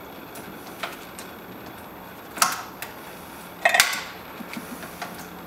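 Locking pliers clicking and clacking against a metal hose clamp on a water pump hose: a few light clicks and two louder metallic clacks just over a second apart.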